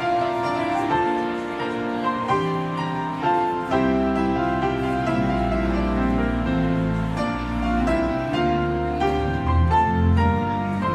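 Pipe organ playing a postlude at the close of the service: held chords and a moving melody, with deep pedal bass notes entering about four seconds in.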